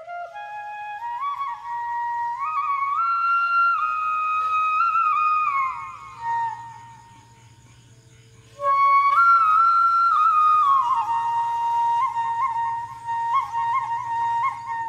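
Bamboo flute (bahi) playing a slow solo melody. A phrase climbs step by step to a held high note and falls away about six seconds in. After a short pause a second phrase starts, with quick ornaments on its held notes near the end.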